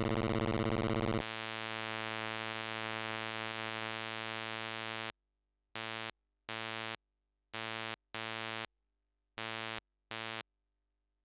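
Earophone Mimsy, a DIY stepped tone generator built on the Atari Punk Console circuit, putting out a buzzy electronic drone. About a second in, a dense grinding tone gives way to a steadier buzz. That buzz cuts off about five seconds in, and the tone then comes back as six short blips of about half a second each.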